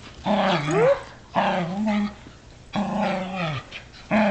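Shetland sheepdogs growling in play: three drawn-out growls of just under a second each, with a fourth starting near the end.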